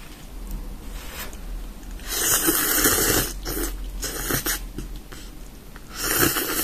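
Thick instant ramen noodles being slurped: a long slurp about two seconds in, two shorter ones after it, and another near the end.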